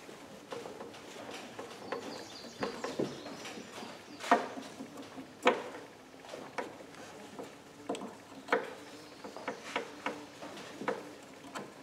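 Scattered light clicks and knocks of hand tools and metal parts being handled during work on a rusted go-kart axle, the two loudest about four and five and a half seconds in.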